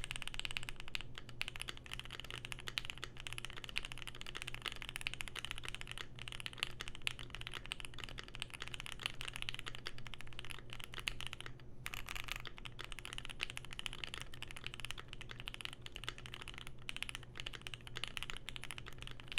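Fast, continuous typing on a Keychron Q1 mechanical keyboard with an aluminium plate and lubed, filmed Pinoko switches. The board has a two-layer tape mod and its Poly-Fil case stuffing removed. There is a short pause in the keystrokes about twelve seconds in.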